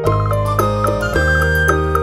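Instrumental background music: a gentle tune of held notes over a steady low bass, with frequent bell-like tinkling strikes.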